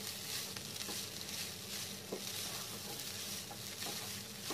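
Cooked rice being stirred and turned over with a slotted spatula in a hot frying pan, with a soft sizzle and light scraping of the spatula against the pan. A faint steady low hum runs underneath.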